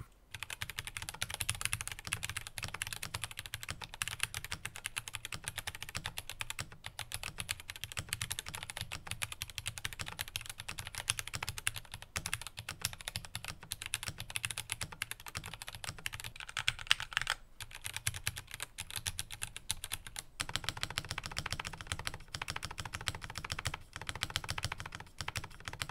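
Typing on a Glorious GMMK Pro mechanical keyboard: a fast, uneven stream of key clacks with a few short pauses. The board is gasket-mounted, with a polycarbonate switch plate and switches not yet lubed.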